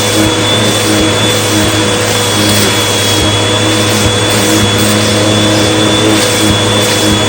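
Hoover Elite Rewind UH71013 bagless upright vacuum cleaner running steadily, its motor giving a high, constant whine over the rush of suction. The owner thinks the machine sounded as if its belt was starting to get stretched.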